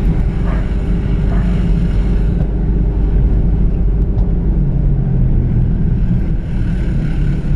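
Mitsubishi Delica L400 Space Gear 4x4 minibus driving slowly, heard from inside the cabin: a steady engine and road drone. A low hum in the engine note grows stronger for a moment past the middle.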